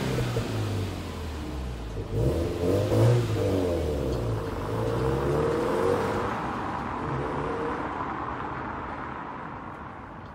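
Subaru WRX STI (VAB)'s turbocharged EJ20 flat-four engine revving as the car pulls away, its pitch climbing several times in the first few seconds. It then fades steadily as the car drives off.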